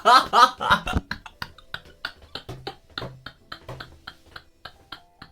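A man's voice sounds loudly for about a second, just after his sneeze. Then comes a run of quick, light clicks, about four or five a second.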